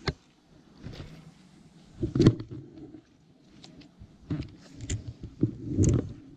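Scattered knocks and dull thumps from gear being handled on a boat, loudest about two seconds in and again near the end.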